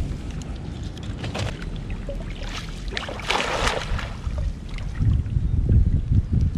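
Water splashing and sloshing around a person wading waist-deep, with a couple of brief splashes in the first half. Wind buffets the microphone with a low rumble from about two-thirds of the way in.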